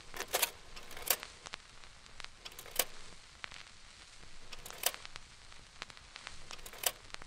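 Faint crackle: irregular clicks and pops over a low hiss, like the surface noise of an old record or film, laid under the opening.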